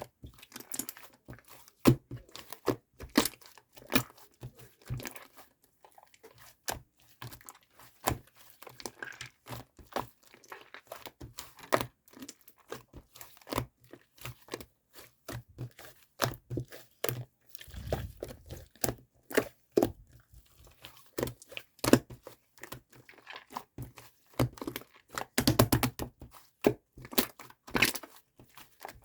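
Slime under a layer of fluffy shaving foam being pressed and squished by hand, giving a constant run of small sticky clicks and crackles, with a denser, louder cluster about three quarters of the way through.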